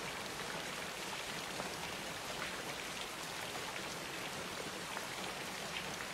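Steady rain falling, an even hiss with scattered louder drops.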